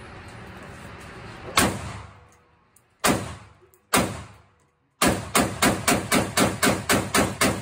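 AR-15 rifle firing .223/5.56 rounds with reverberation: a single shot, two more about a second apart, then rapid semi-automatic fire at about three shots a second.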